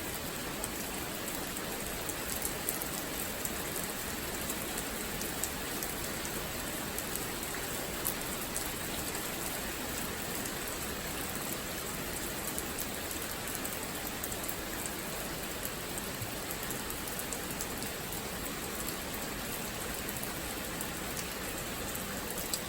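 Steady rain falling and pattering on surfaces, with many small drop ticks over an even hiss.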